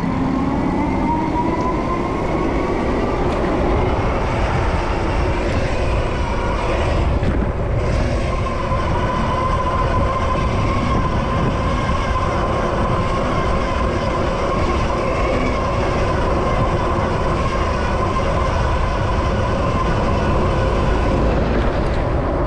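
Riding noise from a Super73 ZX electric bike in traffic. A heavy, steady wind rumble sits on the microphone. Over it runs a whine that rises over the first three seconds and then holds steady.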